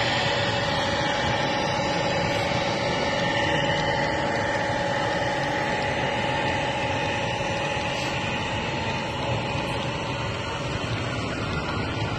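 Steady diesel-engine sound from a sound-fitted model railway locomotive, running evenly with a couple of held tones over a continuous hum.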